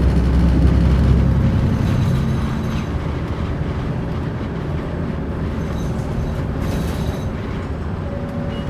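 Cabin sound aboard a Mitsubishi Fuso Aerostar city bus under way, with its six-cylinder turbo diesel running. The engine drone is loud for the first two seconds or so, then drops to a quieter, steadier run under road noise.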